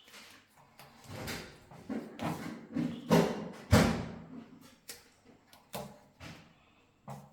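A series of irregular knocks and clunks, about eight in all and loudest around the middle, from tools and fittings being handled during radiator bracket installation.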